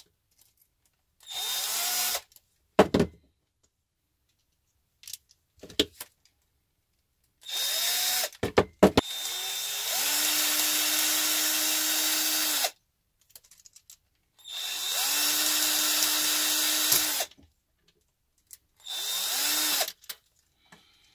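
Cordless drill-driver driving small screws while the rear axle of a WPL B-36 RC truck is put back together. The motor runs in five bursts, each spinning up in pitch; two of them last about three seconds, the others about a second. A few clicks and knocks from handling the parts come between the bursts.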